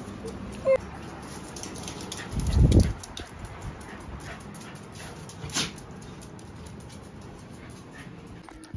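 Pet dogs scrambling about with small whimpering noises and scattered clicks, and a loud low thump about two and a half seconds in.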